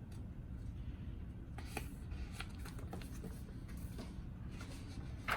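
Faint paper rustling and small clicks as a picture book's pages are handled and turned, with a sharper tap near the end, over a low steady hum.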